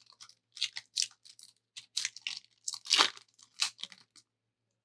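Trading-card pack's foil wrapper crinkling and tearing as it is opened by hand, a string of short crackles that stops about four seconds in.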